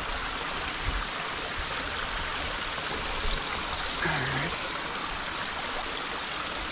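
Stream water running steadily, an even rushing hiss with no break.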